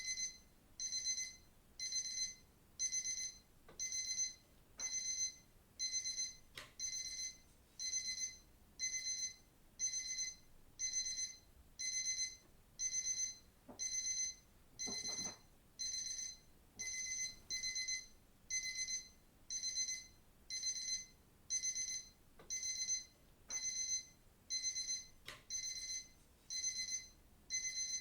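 Digital watch alarm beeping: short bursts of rapid, high-pitched electronic beeps, about one burst a second, repeating evenly.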